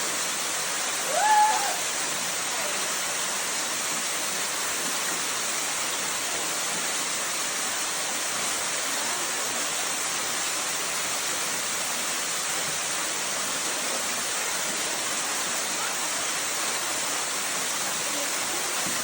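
Steady rush of a waterfall, even and unbroken, with a short high call about a second in.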